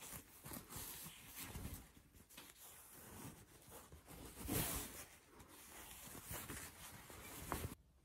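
Silk pongee (mawata tsumugi) kimono fabric rustling and rubbing as it is handled and turned over, loudest about halfway through and cutting off abruptly near the end.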